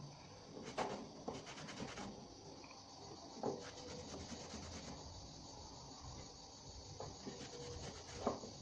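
Cloth rubbing and wiping the round metal cover of a car's LPG regulator by hand, with a few light knocks as the part is handled.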